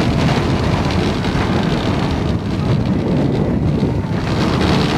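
Wind buffeting the camcorder microphone with a steady low rumble while riding a steel Intamin Mega Coaster at speed.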